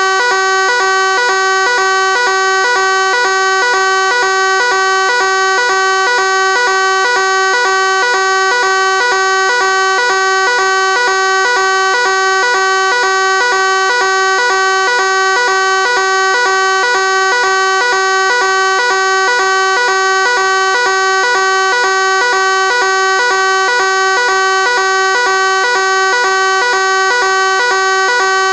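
Fire alarm sounding continuously: a loud, steady, pitched ring with a rapid, even flutter, never changing in pitch.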